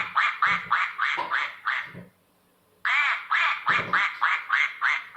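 Recorded duck quacking played from a children's farm sound book: two runs of rapid quacks, about four a second, with a short break about two seconds in.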